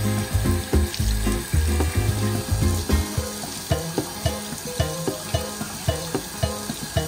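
Background music with a steady beat; the heavy bass drops out about three seconds in. Underneath is a hiss that fits water running from a bathroom tap into a washbasin.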